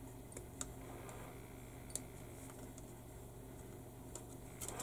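Scattered sharp clicks of a plastic model-kit sprue being handled and snipped with sprue cutters, the loudest about two seconds in and a small cluster near the end, over a low steady hum.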